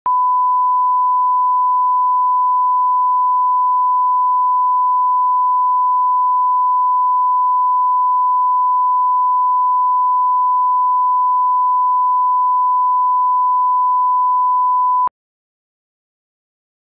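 Steady 1 kHz line-up test tone, the reference tone played with colour bars at the head of a broadcast tape. It holds one unchanging pitch and cuts off abruptly about fifteen seconds in, leaving silence.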